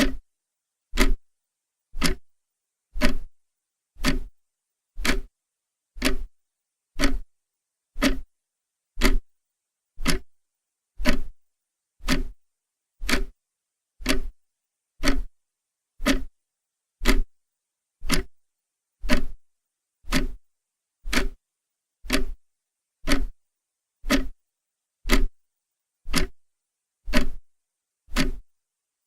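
Clock ticking steadily, one sharp tick each second, with silence between the ticks.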